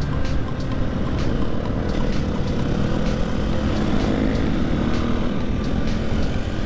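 Husqvarna FE 501 supermoto's single-cylinder four-stroke engine running under way, its note climbing slightly and then holding steady, over heavy wind rush.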